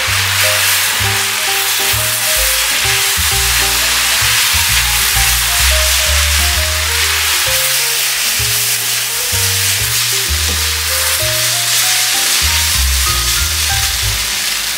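Chow mein (egg noodles, onion, carrot and ground pork) sizzling in an oiled frying pan as it is stir-fried and tossed with a silicone spatula, with oyster sauce just added. Background music plays alongside.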